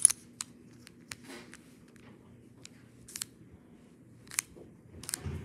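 Plastic fraction tiles clicking as they are slid and pushed about inside a clear plastic box: a scattered series of sharp clicks at irregular spacing.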